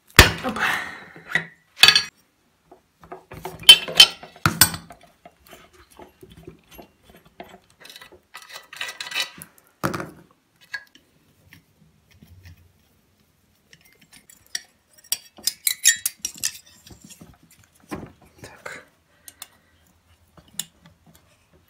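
Metal clinks and knocks of hand tools working on a two-stroke brush cutter engine's crankcase during disassembly. The sounds come in scattered short strokes with pauses between them.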